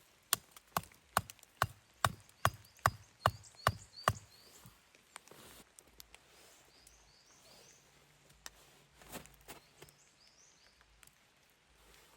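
Wood being chopped with a hatchet or axe: about ten quick, evenly spaced blows, then the chopping stops about four seconds in.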